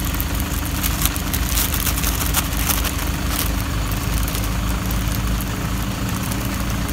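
A vehicle engine idling steadily close by, a constant low hum, with the crinkling of a plastic bag being handled over it.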